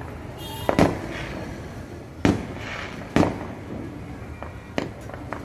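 Fireworks exploding: four sharp bangs spread over a few seconds, with fainter pops between them.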